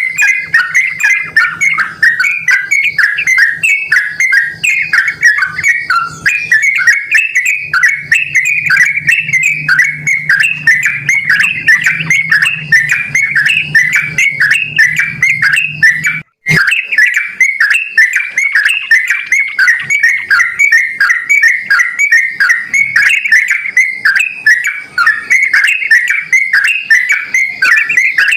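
Yellow-vented bulbul singing: a rapid, continuous run of bubbly chattering notes. It breaks off for a split second about two-thirds of the way through, then carries on, with a faint low hum underneath during the first half.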